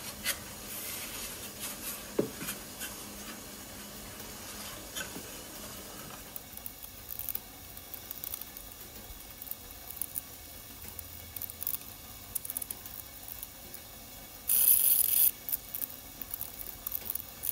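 Chisel paring a small piece of wood off a ukulele body: scattered light scrapes and clicks, with a brief harsh scraping stroke near the end.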